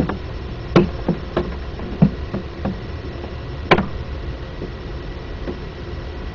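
Handling noise from a handheld camcorder being swung to follow a flying bird: a run of irregular knocks and clicks, the loudest about a second in and nearly four seconds in, over a steady low rumble.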